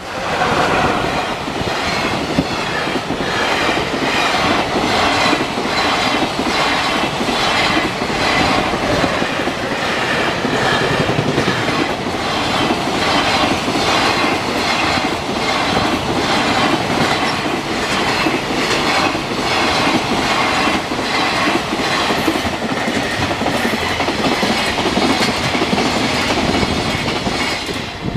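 Train passing close by at speed, its wheels clacking over the rail joints in a steady, even rhythm.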